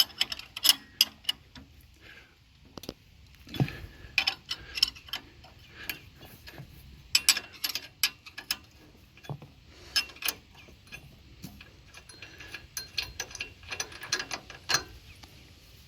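Ratchet wrench clicking as a 19 mm bolt is loosened from a tractor's three-point lift arm, in irregular runs of sharp clicks with short pauses between.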